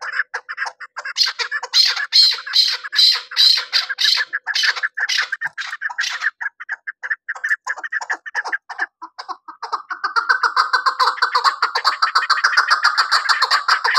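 Chukar partridge calling: a long run of rapid repeated chuck notes, loudest in the first half, thinning around the middle, then building back into a fast, even series near the end.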